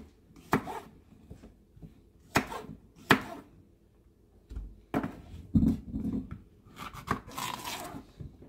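Kitchen knife cutting zucchini on an end-grain wooden cutting board: separate sharp knocks of the blade against the wood at irregular intervals, with a quicker run of cuts near the end.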